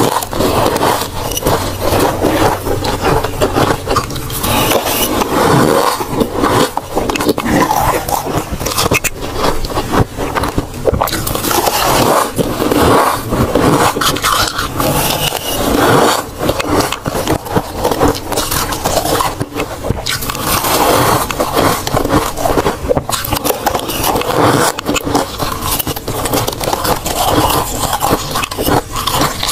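Metal spoon scraping thick freezer frost, and crisp, crunching bites and chewing of the powdery frost close to the microphone: a continuous dense crackle with many small clicks.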